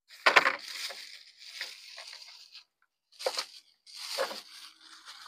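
Thin plastic shopping bag crinkling and rustling as blister-packed toy cars are handled and pulled out of it, in three irregular bursts, the first and loudest about half a second in.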